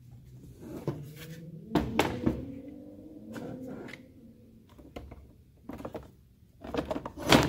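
Hard plastic knocking and clattering as the cut halves of a Volvo truck coolant expansion tank are lifted apart and set back together: a string of separate knocks, the loudest cluster near the end.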